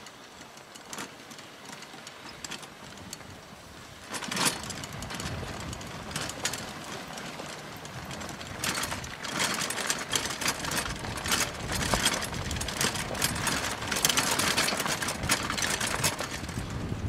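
Wheels of a dog-pulled training cart rolling over a gravel road, with dense crunching and rattling that starts about four seconds in and grows louder.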